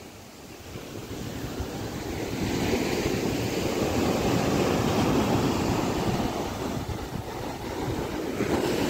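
Sea surf breaking and washing up a sandy beach: a continuous rushing wash that grows louder over the first few seconds, with wind on the microphone.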